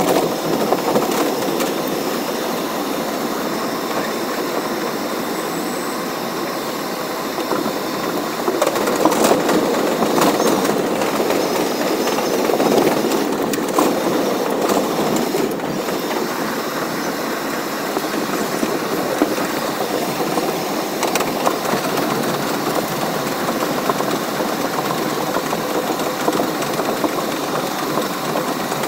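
Bombardier R62A subway train running along elevated track, heard from inside the front car: a steady rush of wheel-on-rail and running noise, louder from about eight to fourteen seconds in.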